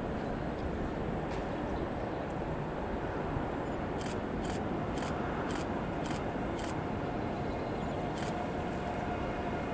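Steady low rumble of railway station background noise, with a run of sharp ticks about two a second starting about four seconds in, and two more single ticks later.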